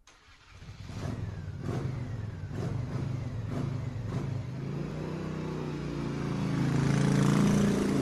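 Car engine running and revving, fading in over the first second, with its pitch rising steadily over the last few seconds as it speeds up.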